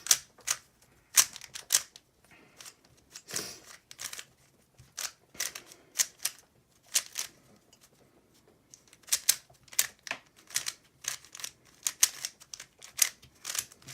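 3x3 Rubik's cube being scrambled by hand: plastic layers clicking and clacking as they are turned, in irregular quick runs with short pauses.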